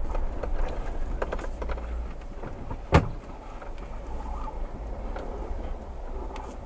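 Jeep Wrangler driving over a rocky desert track: a steady low rumble of engine and tyres with scattered knocks and rattles, and one sharp bang about three seconds in.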